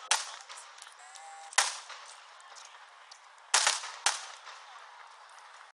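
Aerial firework shells bursting: four sharp bangs at uneven intervals, the last two close together, each trailing off in a short echoing tail.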